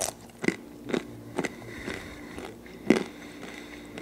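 A person chewing a mouthful of mixed nuts close to the microphone: a run of crisp crunches about every half second, the loudest near three seconds in.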